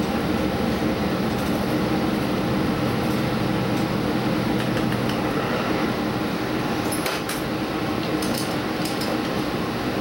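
Diesel express train running at speed, heard from the front observation seat: a steady rumble of wheels on rail with a low hum, and a few light clinks and rattles about seven and eight and a half seconds in.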